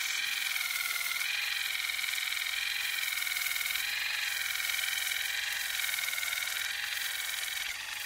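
Electric toothbrush running with a steady high buzz, its pitch wavering slowly up and down.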